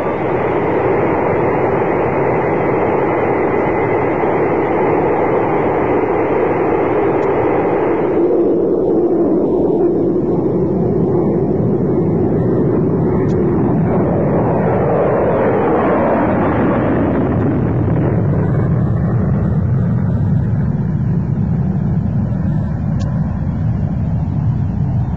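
Lockheed SR-71 Blackbird's twin Pratt & Whitney J58 jet engines running loud as the aircraft taxis and takes off. About halfway the pitch sweeps as it goes by, and the sound settles into a deep rumble as it climbs away.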